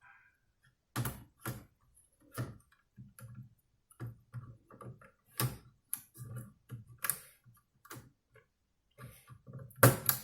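A string of irregular small clicks and taps from handling laptop parts, as a card-reader ribbon cable is fitted into its connector on the motherboard. The loudest clicks come near the end.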